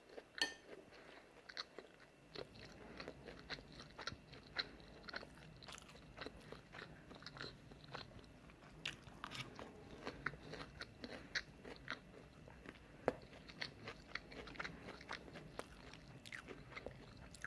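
A person chewing a mouthful of udon noodles with tofu and vegetables: a steady run of soft, irregular mouth clicks and small crunches.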